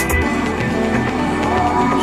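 Progressive house music from a DJ mix: sustained synth chords over a deep bass. The fast high ticking of the beat drops out just after it begins.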